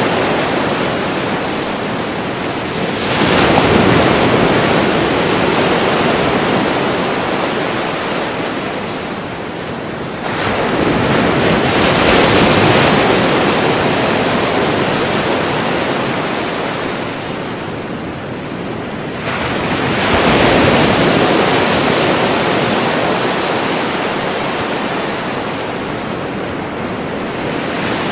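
Ocean waves breaking on shore, three breakers in turn, each surging in quickly and then washing out over several seconds.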